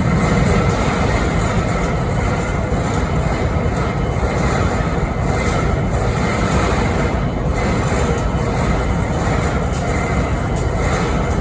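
BNSF 5910, a diesel locomotive, idling with a steady, loud, unbroken running noise and a faint high tone above it. This is the strange idling noise the unit is filmed for.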